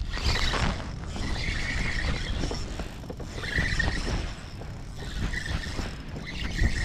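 Wind buffeting the microphone, with a spinning reel whirring in three short spells as the line is cast and reeled.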